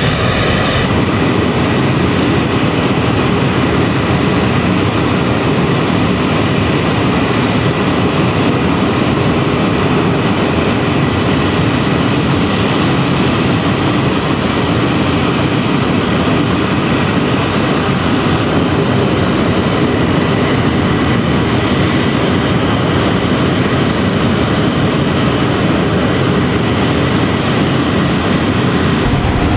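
Airbus A400M Atlas's four Europrop TP400 turboprop engines, with eight-bladed propellers, running steadily on the ground: a loud, even noise with a faint high whine.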